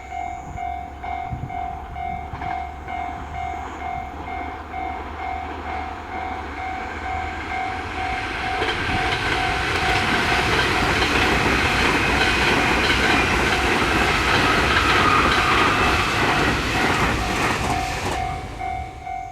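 Level-crossing warning bell ringing about twice a second while a train passes over the crossing. The train's noise builds from about eight seconds in, is loudest in the second half, and drops away near the end, leaving the bell clear again.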